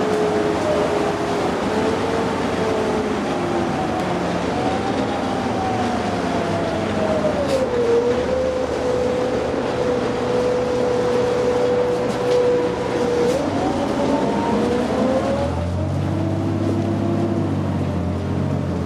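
2009 New Flyer D60LFR articulated diesel bus heard from inside while driving: a whine from the drivetrain falls in pitch, holds steady for several seconds, then rises again, over steady road noise. Near the end the road noise drops away and a low engine rumble is left.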